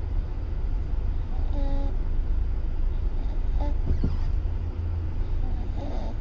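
Steady low rumble of road noise inside a moving car's cabin. Two short, flat tones sound about one and a half and three and a half seconds in, and a baby's soft snore comes faintly near the end.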